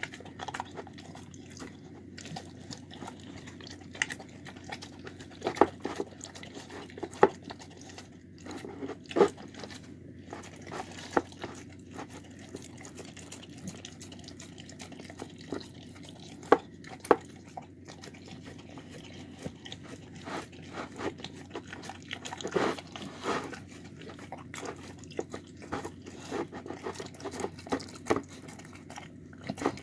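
A dog eating from and licking its food bowl: wet tongue-lapping and smacking, with irregular sharp clicks and knocks against the bowl, a few much louder than the rest.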